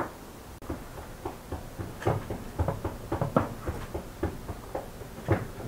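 Serrated kitchen knife slicing sheep tail fat on a wooden cutting board. The blade knocks against the board with each cut, several uneven knocks a second.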